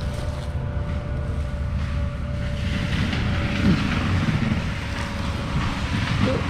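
Diesel engine of heavy land-clearing equipment running steadily, with a hissing noise rising about three seconds in and a few brief shifts in pitch.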